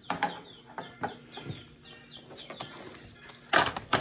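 Faint, mixed room noise, then a short loud rustle of handling noise about three and a half seconds in.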